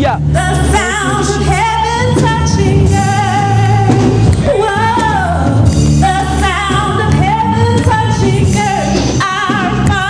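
Women's voices of a gospel praise team singing a worship song into microphones over steady instrumental backing with held low notes.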